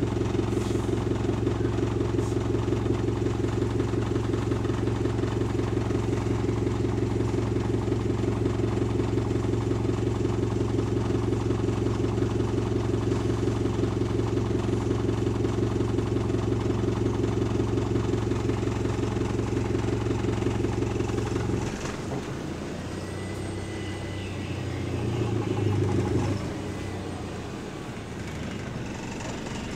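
Diesel engine of a WS65 double-decker bus idling with a steady, even throb, heard from inside the passenger saloon. About 22 seconds in the steady idle breaks off and a lower, uneven running sound takes over as the bus moves off, swelling briefly a few seconds later.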